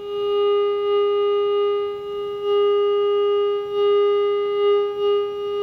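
A steady, mid-pitched audio tone with overtones from the Panasonic RF-4900 communications receiver's speaker. The set is picking up the signal from a non-contact signal injection probe waved over its front panel with no antenna connected. The tone swells and dips as the probe moves, showing where RF leaks through the panel, and it is the sign that the receiver is receiving.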